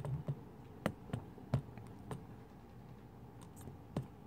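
Hands handling small epoxy tubes and a clear plastic tray: a few separate light clicks and taps, spaced irregularly.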